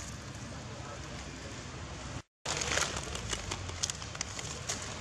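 Steady outdoor hiss, broken by a brief dropout a little over two seconds in. After it come irregular sharp crackles and rustles of dry fallen leaves as a baby macaque sits and moves in them.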